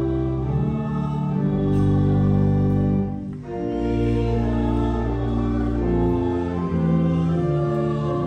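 Church organ playing slow, held chords that change every second or so, with a brief break between phrases about three seconds in.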